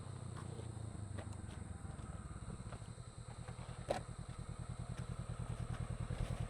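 Motorcycle engine idling steadily with an even low pulse, and a single sharp click about four seconds in.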